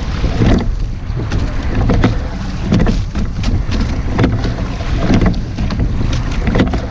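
Rowing shell under way: wind buffeting the microphone over a steady rush of water along the hull, with repeated knocks and splashes as the oars work through their strokes.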